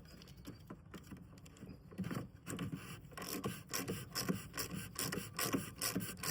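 Oil filter housing cap being screwed back on by hand with the new filter: irregular rubbing and scraping strokes of the threads, coming more often from about two seconds in.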